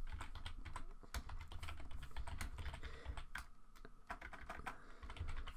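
Typing on a computer keyboard: quick, irregular keystrokes, faint.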